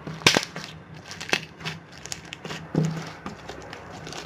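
Hands squeezing and pulling a large glue slime mixed with foam beads, giving irregular crackly, crunchy pops and clicks with a few squishes.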